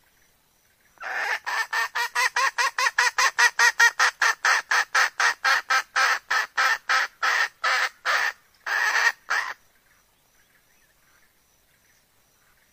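A hen calling: a long run of quick, sharp clucks, about four a second, starting about a second in. The clucks slow slightly toward the end and finish with one longer drawn-out note.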